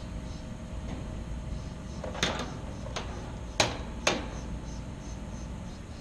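Five short, sharp knocks and clicks between about two and four seconds in, over a steady low hum.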